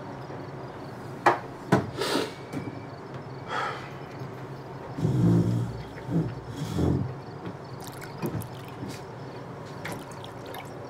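A few sharp clinks and knocks of a glass being set down, then a drink poured from a bottle into the glass, glugging for about two seconds.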